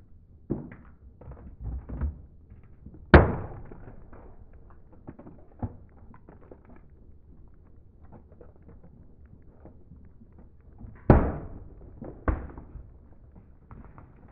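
Plastic cups cracking and popping as a car tyre rolls over them and crushes them on concrete. About half a dozen sharp cracks, the loudest about three seconds in and again near eleven and twelve seconds, with small crackling between them.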